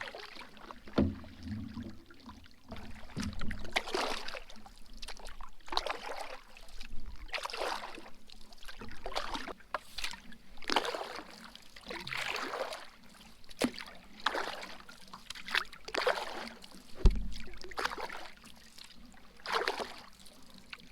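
Canoe paddle strokes in the water, a swish every second or two, with a sharp low knock about a second in and a louder one later on.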